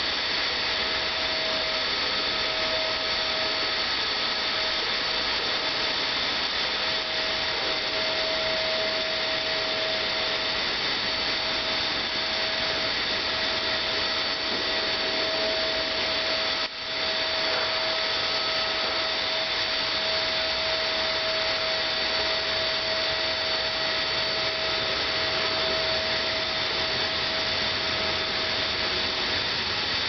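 Shark upright vacuum cleaner's motor running steadily with a constant whine, its hose drawing up sawdust. The sound dips briefly about halfway through.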